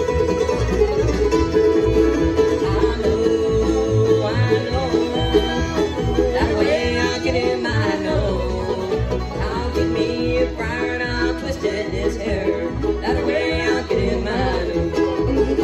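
Live acoustic bluegrass band playing: banjo, fiddle, mandolin, guitars and upright bass, with singing.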